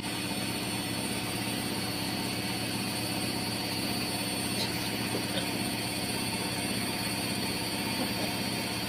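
Front-loading washing machine running with a steady, even hum.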